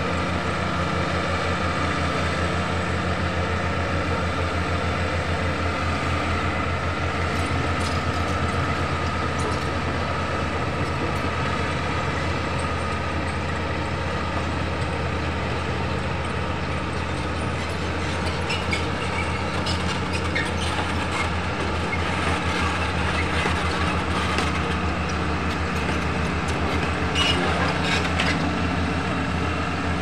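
Crawler bulldozer's diesel engine running steadily as the machine works and backs up a sandy riverbank. From about halfway through come sharp clanks and squeaks of its steel tracks.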